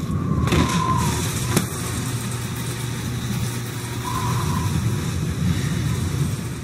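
Steady low rumble of city traffic ambience, with one sharp click about a second and a half in and a faint tone that rises and falls about four seconds in.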